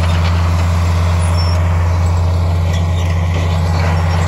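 Crawler bulldozer's diesel engine running at a loud, steady low drone as the machine works.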